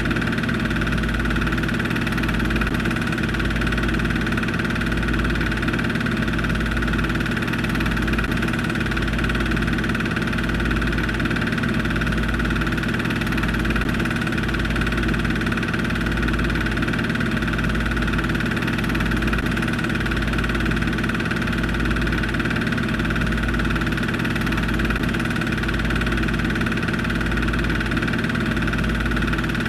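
Film projector running: a steady mechanical whir and hum with a regular low throb, unchanged throughout.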